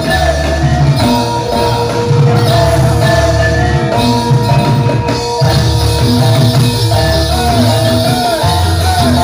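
Jathilan (kuda lumping) gamelan accompaniment music: drums playing a steady repeating pattern under sustained metallophone tones and a wavering melody line that bends in pitch.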